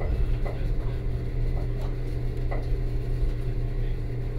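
Gornergrat Bahn electric rack railcar running, heard from the driver's cab: a steady low hum with short, faint creaks and squeaks every so often.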